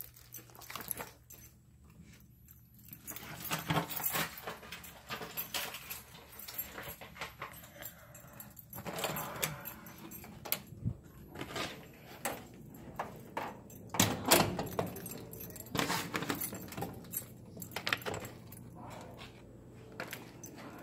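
Irregular jangling, rustling and clicking of handled belongings close to a phone microphone, with a few louder knocks.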